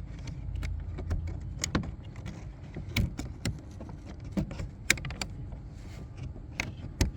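Irregular plastic clicks and knocks as a car's inner door trim panel is handled and fitted against the door, with a low rumble fading out in the first second or so.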